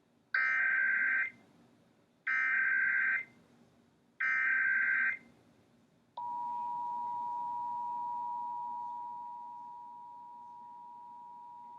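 Emergency Alert System broadcast alert: three identical buzzy bursts of SAME header data about a second apart, then the steady two-tone EAS attention signal, which drops in level a few seconds after it starts.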